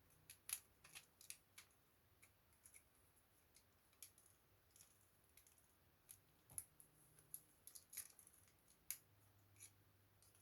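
Faint, irregular small clicks and ticks of laptop parts being handled during keyboard replacement work.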